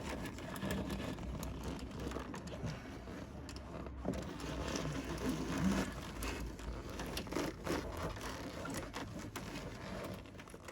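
Hands working a part into place in a car's engine bay: scattered clicks and knocks of plastic and metal parts over a steady low hum.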